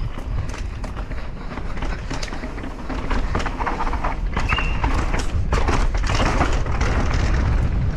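A mountain bike rolling down a rocky trail: the tyres and frame clatter and knock over the rocks above a low rumble that grows louder as speed builds. There is a brief high squeal about four and a half seconds in.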